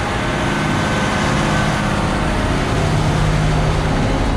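Diesel engine of a Terex FD4000 front-discharge concrete mixer running under load to turn the drum, with a steady rushing of concrete pouring into the drum from the batch plant chute. The engine note grows a little louder about three seconds in.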